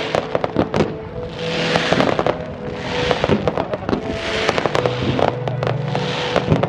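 Fireworks display: a dense run of sharp cracks and bangs from fanned volleys of comets and mines, with hissing whooshes swelling about once every second or so.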